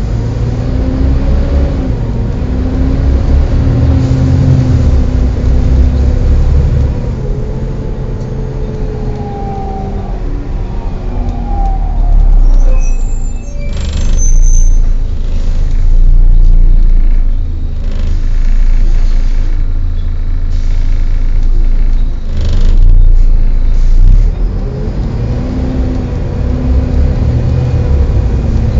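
Volvo B7TL double-decker bus under way, its engine and driveline rising and falling in pitch as it accelerates and changes gear. A brief high squeal and a few short sharp sounds come around the middle.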